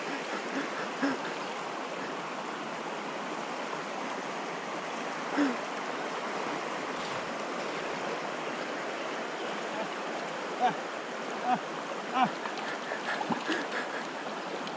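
Steady rushing of a river's current flowing over shallows, with a few short pitched sounds standing out above it about a third of the way in and again several times near the end.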